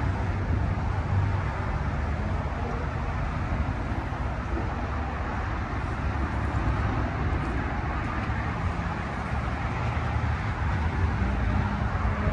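Thunderstorm: a steady rushing noise of wind and rain with a deep low rumble throughout.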